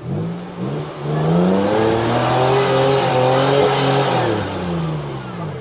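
Toyota Tacoma's engine revving under load as the truck crawls through a deep rut. The revs climb about a second in, hold high for a few seconds, then ease off near the end.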